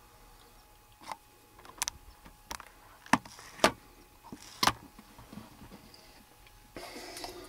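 Handling noise inside a hunting blind: about half a dozen sharp clicks and knocks scattered over a few seconds, then a brief rustle near the end.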